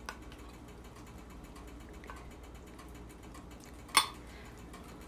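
Minced raw beef being worked with butter in a pot for kitfo: a faint run of small, rapid ticks and clicks from the mixing, with one sharp clink about four seconds in and a louder knock at the very end.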